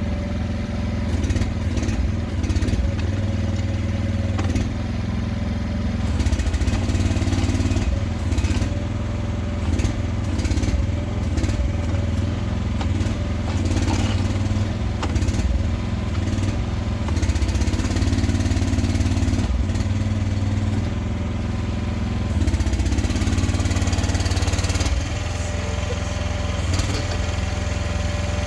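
AGT Industrial MH12R mini excavator's small engine running steadily under hydraulic load while digging. Its note swells and eases as the arm and bucket work, with scattered knocks.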